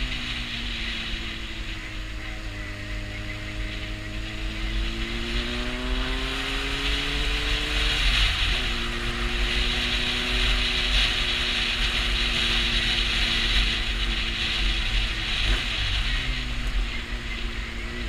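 Honda CB600F Hornet's inline-four engine under way, climbing in pitch for about eight seconds, then dropping sharply at an upshift and holding steady, with another shift a few seconds before the end. Heavy wind noise rushes over the microphone throughout.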